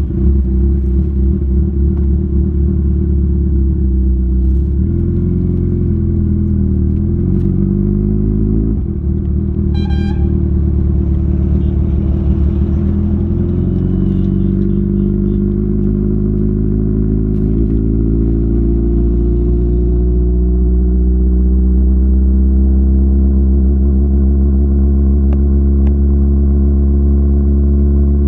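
Kawasaki Ninja 1000SX's inline-four engine running through Lextek headers and an Austin Racing end can, its pitch shifting down and up in the first third, then rising slowly near the end. A short horn-like beep about ten seconds in.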